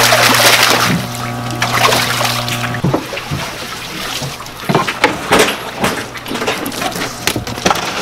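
Water splashing as live fish are lifted out of a tank in a long-handled landing net, loudest in the first second, then water streaming off the net and scattered sharp knocks.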